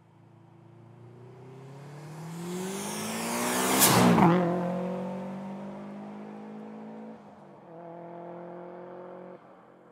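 Modified 2003 Subaru WRX STI's turbocharged flat-four, with a 3-inch stainless exhaust and titanium cannon muffler, passing by under acceleration. The engine note rises in pitch and grows louder as the car approaches, is loudest as it passes about four seconds in and then drops in pitch, and keeps pulling as it moves away, with a brief dip about seven seconds in and a sudden cutoff near the end.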